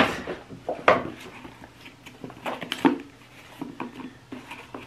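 Handling noise of a ribbon-tied wallet box being picked up and handled: light rustles and small ticks, with a few sharp knocks, the loudest at the very start and others about one and three seconds in.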